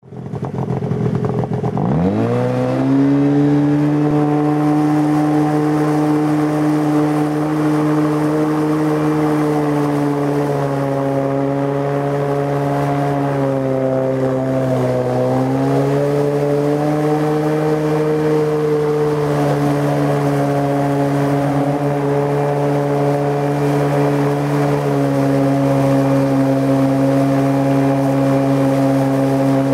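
Tohatsu M50D2S two-stroke outboard with a water-jet unit running under way, its engine note climbing over the first two or three seconds and then holding steady, with a short dip in revs about halfway through.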